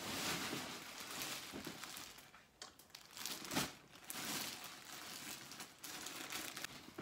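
Packaging bag rustling and crinkling in fits and starts as clothes are rummaged through and pulled out of it.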